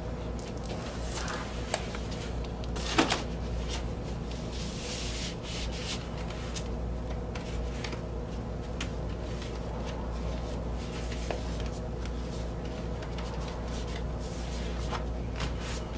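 Cardboard gatefold LP jacket and its paper sleeves being handled on a desk: rustling, sliding and light taps, with a sharper knock about three seconds in. A steady low hum sits underneath.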